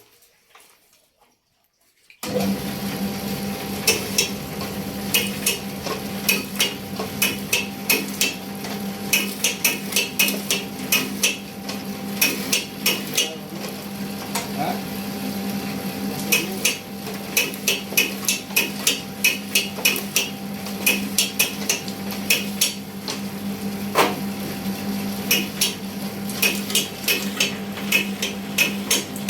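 Bamboo satay-skewer making machine running: a steady motor hum with rapid, uneven clacking of bamboo strips and sticks passing through it. It starts abruptly about two seconds in, after near silence.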